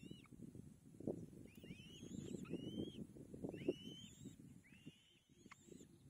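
Kites at the nest: short, high whistled calls that arch up and drop, repeated about once a second, over a steady low rustling and crackling of twigs and feathers in the nest.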